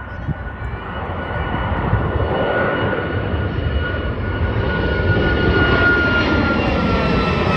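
Airliner's engines growing louder over the first couple of seconds, then holding loud. There is a steady rumble and a high whine that slides slowly down in pitch.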